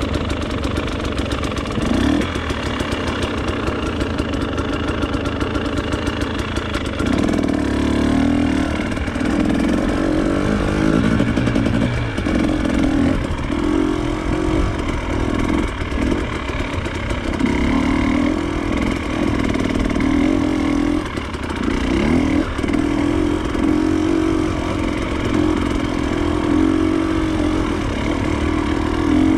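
Off-road motorcycle engine running under throttle, revving up and easing off repeatedly from about seven seconds in.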